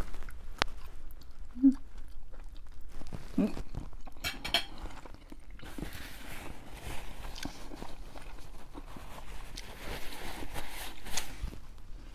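Close-up eating sounds: a person chewing food, with a few sharp clicks of utensils early on and a soft steady chewing texture through the rest.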